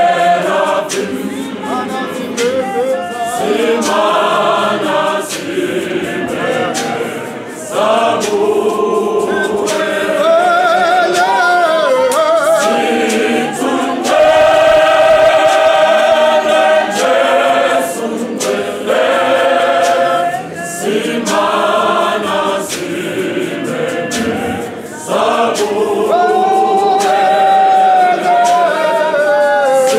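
Church choir of mostly male voices singing a hymn a cappella in harmony, in phrases with short breaks. It grows louder about fourteen seconds in.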